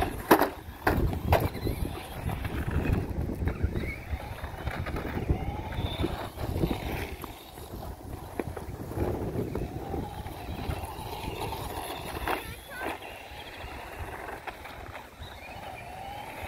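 ECX AMP Crush 2WD RC monster truck running: its electric motor whines up and down in pitch as it speeds up and slows. A few sharp knocks sound in the first second or so and again about twelve seconds in, as the truck hits the ground or bumps, over a low wind rumble.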